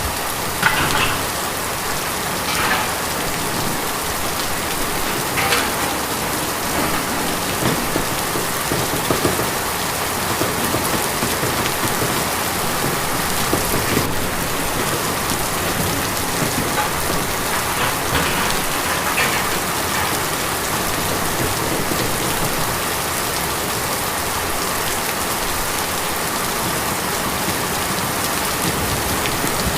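Steady rain falling on a tin roof, with a few louder single drops standing out now and then.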